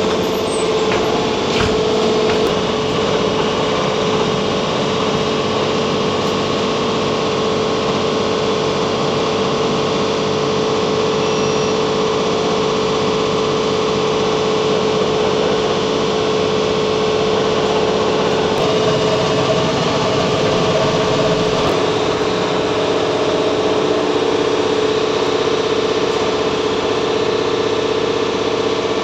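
Cabin noise of a BKM 321 trolleybus under way: the electric drive's steady hum with one held tone, over an even rush of road noise. A second, slightly higher tone joins about two-thirds of the way through.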